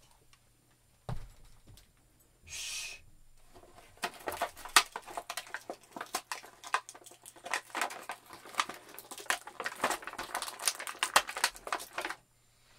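Plastic action-figure packaging crackling and clicking as it is handled and pulled open, a dense irregular run from about four seconds in until shortly before the end. A soft thump about a second in.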